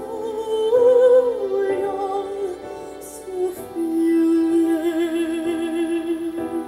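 A female singer's operatic-style voice with soft accompaniment, played back through JL Audio C5-650 speakers driven by a Mitsubishi NR-MZ90PREMI sound navi's built-in amplifier. She holds long notes, with vibrato on the held note in the second half.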